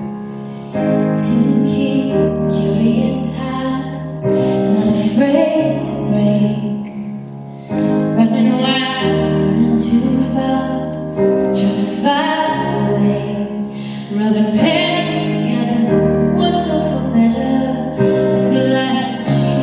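Live piano ballad with a woman singing over it. The piano chords change about every three and a half seconds.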